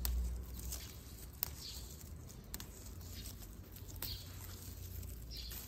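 Rose leaves rustling and snapping as they are plucked off a stem by hand; they are infected with powdery mildew. A bird chirps with short falling notes about once a second in the background.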